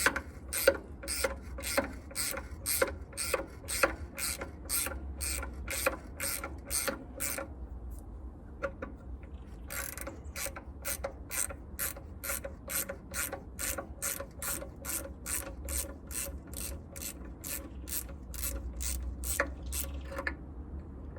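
Hand ratchet wrench clicking in a steady rhythm of about two to three clicks a second as a nut or bolt is turned. It stops for a couple of seconds about eight seconds in, starts again, and stops near the end.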